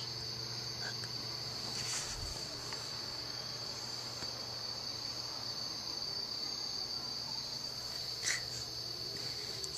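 Crickets trilling in one steady, unbroken high-pitched chorus. Brief soft rustles of the camera being handled come about two seconds in and again near the end.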